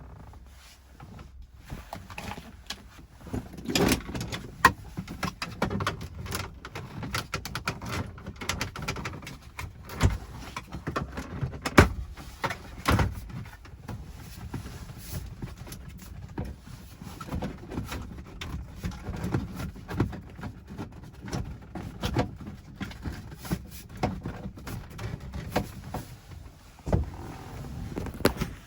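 Hands working a car stereo and its plastic side rails into a dashboard opening: a long run of irregular clicks, knocks and scraping of plastic and metal, with a few sharper knocks standing out.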